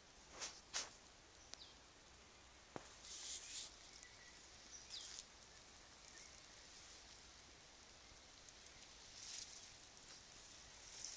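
Near silence outdoors, broken by a few brief, faint rustles of tall grass being brushed through, and one small tick about three seconds in.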